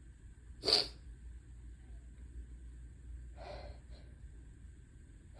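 A person sneezing: one short, sharp sneeze about a second in, then a softer, breathy catch of breath about three seconds later, typical of a hitchy build-up to further sneezes.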